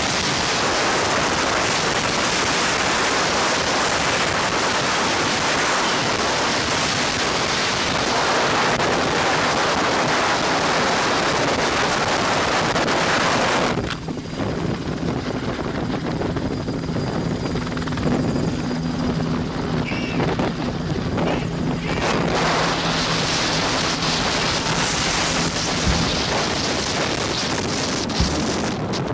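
Helicopter rotor and engine noise mixed with heavy wind on the microphone. About halfway through the rushing noise drops suddenly, and a steady low hum comes through for about twelve seconds.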